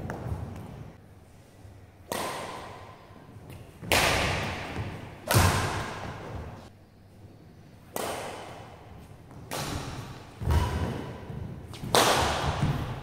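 Badminton rally: about eight sharp racket hits on a shuttlecock, one every one to two and a half seconds, each echoing in a large hall. Low thuds of players' feet landing on the court come between and with the hits.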